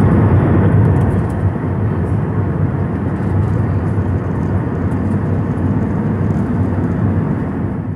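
Cabin noise of an Airbus A321neo in flight: a deep, steady roar of engines and airflow heard from a window seat over the wing. It fades out at the very end.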